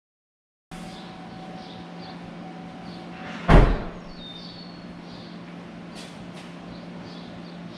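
A steady hum, then a single loud bang about three and a half seconds in, like a door slamming shut, with a short rattle after it. A few faint high chirps and two light clicks follow.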